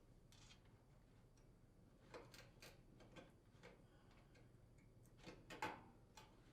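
Faint clicks and taps of wire connectors being pushed onto the terminals of a new range oven door switch, a scattered series beginning about two seconds in, the loudest near the end.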